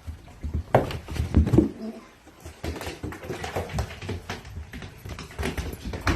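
An animal's noises mixed with a run of irregular knocks and taps.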